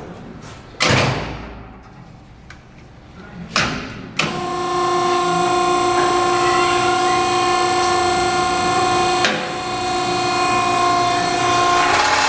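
Nichols vertical cardboard baler: two loud metallic clanks, about a second in and again at about three and a half seconds, then the electric motor and hydraulic pump start a steady multi-tone whine as the press drives down.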